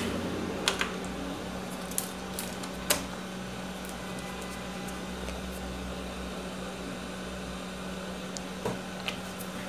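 Steady low electrical hum of running workshop equipment, with a few faint clicks from handling at the bench.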